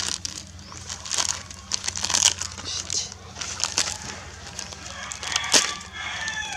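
Crinkling, crackling rustles in irregular bursts as macaques rummage through and handle dry, crinkly material, with one sharper crack about five and a half seconds in.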